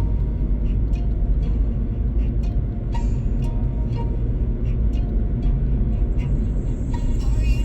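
Subaru BRZ driving: a steady low rumble of engine and tyre noise.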